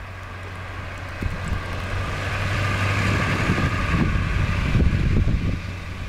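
A vehicle driving past on a snow-covered road, its noise swelling over a few seconds to a peak near the end and then dropping. Wind gusts rumble on the microphone.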